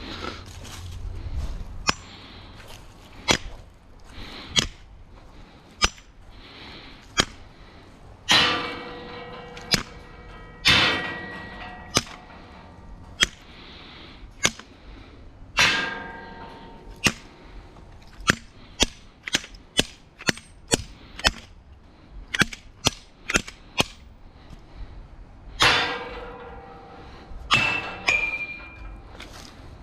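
An irregular series of sharp clicks and bangs, some louder hits trailing a short metallic ringing, bunched closer together in the middle.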